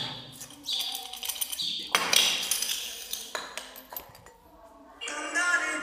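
Metal chain and small metal pieces clinking and rattling against a metal cup on a stone floor, in three ringing bursts over the first three seconds. Background music starts near the end.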